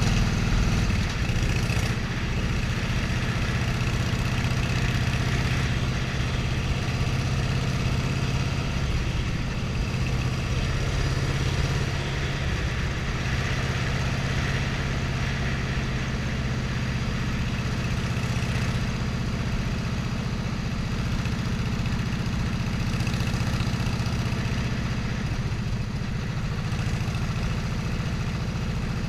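Vehicle engine running steadily at an even speed, a constant low hum with no change in pitch.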